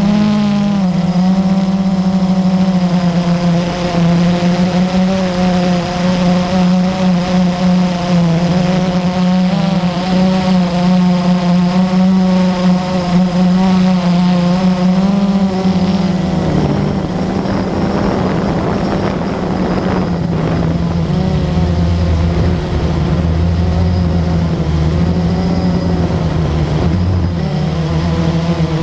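Multirotor drone's motors and propellers humming steadily, the pitch wavering slightly as it flies. A little past halfway the sound turns rougher and noisier, with a lower hum joining in.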